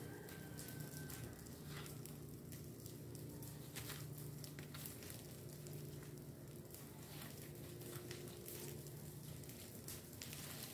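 Rake scratching and dragging dry leaves and twigs over dirt ground in irregular strokes, with a faint steady hum underneath.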